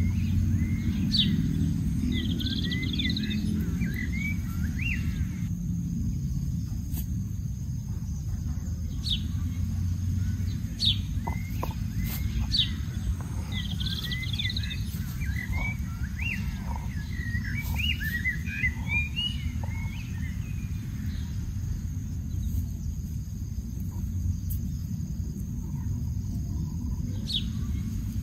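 Small birds chirping and twittering in scattered bursts over a steady low rumble.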